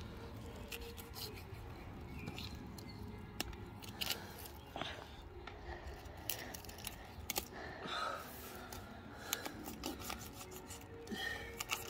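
Fillet knife slicing a large snapper's fillet away from the frame: irregular short scraping strokes and sharp clicks as the blade runs along the bones and through the scaly skin.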